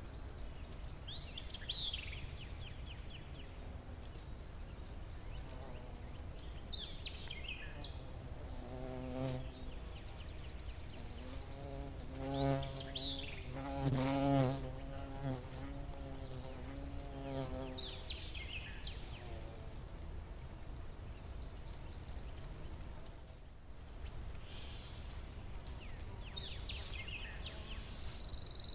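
Forest ambience: a fly buzzing past, swelling and fading over several seconds in the middle and loudest about halfway through. A songbird sings short descending phrases every few seconds, over a steady high thin tone.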